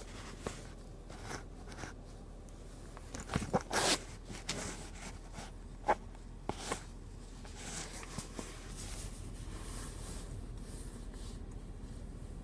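Rustling and scattered sharp clicks and taps, like clothing and objects being handled inside a car cabin; about eight seconds in, a steady hiss comes up and continues.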